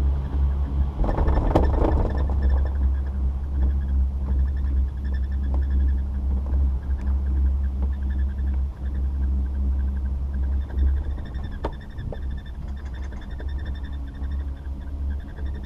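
Riding a Doppelmayr chairlift: a steady low rumble of wind and chair motion, with a faint high whine from the running lift. About a second in there is a brief louder rattling rush as the chair rolls past a tower's sheaves, and there are a couple of sharp clicks near the end.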